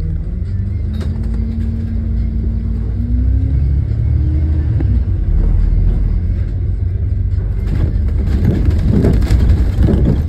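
Alexander Dennis Enviro400MMC double-decker bus running as it pulls away and gathers speed: a loud low drone with tones that step up in pitch twice early on, heard from on board. It gets rougher and louder near the end.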